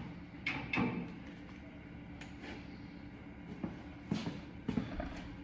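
A handful of light, scattered clicks and knocks, a few seconds apart, from tools and metal parts being handled during work on an old truck's fender bolt.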